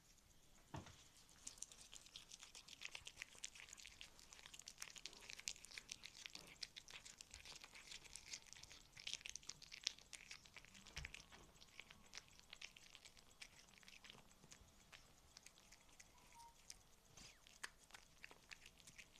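A cat chewing and tearing at a piece of ham, close-miked, with faint wet clicks and crackles of its mouth. The chewing comes thick and fast in the first half and thins out to scattered clicks later.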